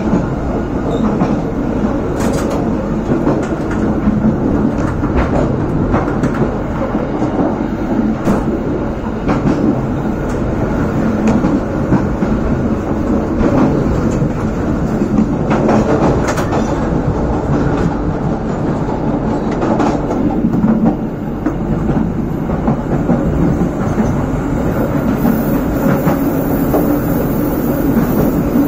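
Passenger train running along the track: a steady rumble of wheels on rail, with occasional clicks over rail joints.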